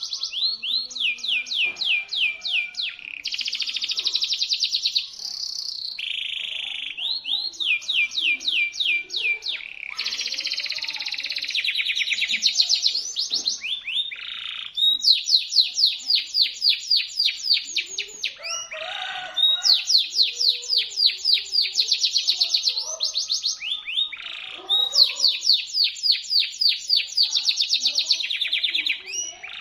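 Domestic canary singing shrill, sharp song in long fast trills of rapidly repeated high notes. It switches from one rolling phrase to the next every second or two, with only brief breaks.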